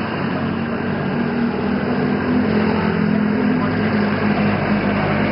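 An engine running steadily, a low hum that grows a little louder over the first second or so.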